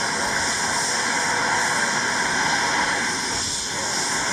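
Eurocopter police helicopter running on the ground with its main rotor turning: a steady rush of turbine and rotor noise.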